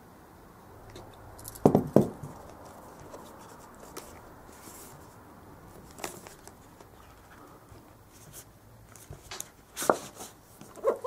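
Cardboard box being opened by hand: a small knife blade picks at the seal, then the inner box is slid out of its cardboard sleeve, with scrapes and clicks of the card, two loud knocks about two seconds in and more knocks near the end.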